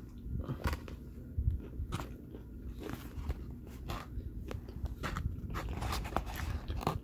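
A person biting into a spicy fried chicken sandwich and chewing it close to the microphone: many short, irregular mouth clicks and smacks.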